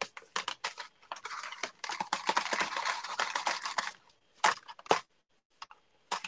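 Stamp being rubbed clean, a dense scrubbing noise lasting about three seconds, with a few clicks before it. Near the end come separate light clicks and taps as a plastic stamp case is handled.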